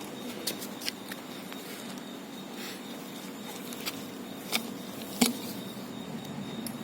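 Puppies at a milk bowl: a few scattered taps and clicks over a steady background hum, the loudest a little past five seconds in.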